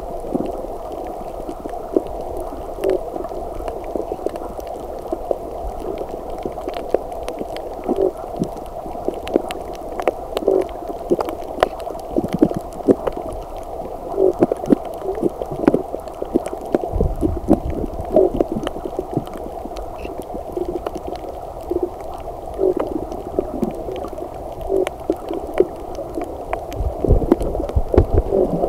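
Muffled underwater sound picked up by a submerged camera: a steady dull wash of water with gurgles recurring every second or two and many scattered small clicks. Deeper rumbles of water movement come about halfway through and again near the end.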